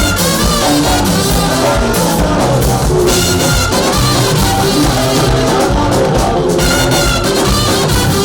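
Loud, upbeat band music with a steady drum beat, instruments and singing.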